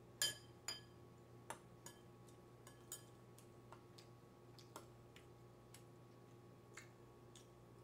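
Metal spoon clinking against a ceramic bowl while scooping rice: a sharp ringing clink about a quarter second in, then scattered lighter taps and clicks of utensils on dishes. A faint steady hum lies underneath.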